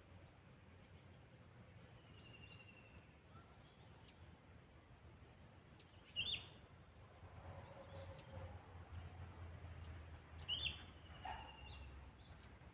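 Sooty-headed bulbul giving short, sharp calls every few seconds, the loudest about halfway through and again near the end, over a faint low hum.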